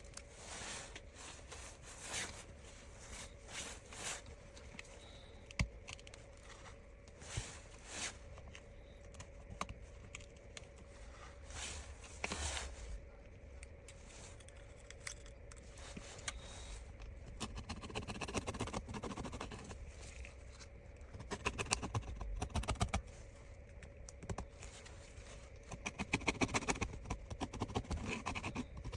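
Light scraping and scratching of a small hand tool working old adhesive off a smartphone frame, with scattered small clicks and taps. Quick rapid runs of scratching come about two-thirds in and again near the end, over a faint steady hum.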